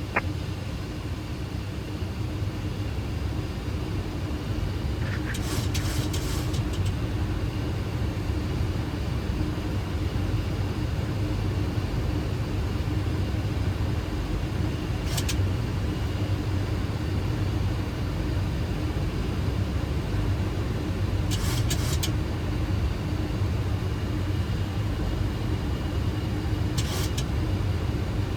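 Steady flight-deck noise of a Boeing 737 on final approach with gear down and flaps 30: airflow and engine hum over a low drone and a steady tone. Four short hissing crackles break in, about 5, 15, 21 and 27 seconds in.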